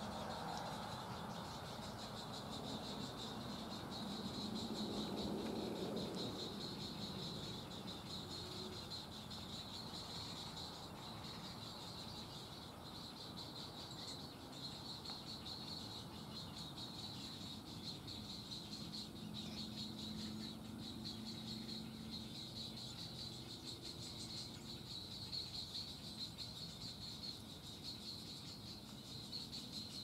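Steady high-pitched insect trill. A low rumble swells about four to seven seconds in and again around twenty seconds in.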